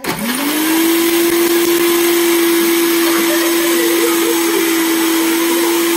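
Countertop jug blender switched on and running, churning a liquid mixture. Its motor spins up in the first half second, then holds a steady hum.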